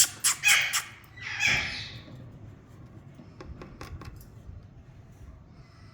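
Alexandrine parakeet squawking harshly: a quick burst of raspy calls at the start, then one longer screech about a second and a half in, followed by a few faint ticks.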